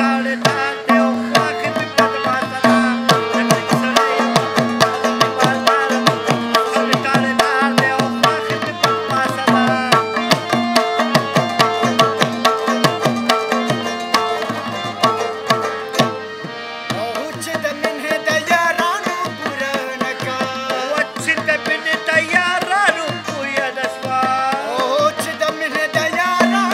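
Instrumental passage of Pashto tappay folk music: tabla playing a fast, dense rhythm with harmonium and rabab. About sixteen seconds in, the drumming thins out and the melody carries on with bending notes.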